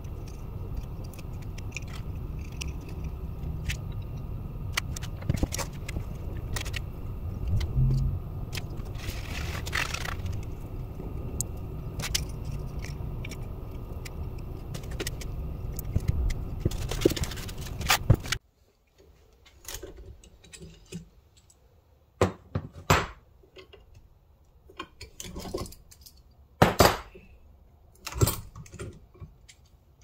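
Scattered clicks, taps and scrapes of wooden handle scales, a glue stick and clamps being handled on a workbench as the scales are glued onto the tool's tang. A steady low rumble runs under the first part and cuts off suddenly a little past halfway, leaving only sparse knocks and clicks.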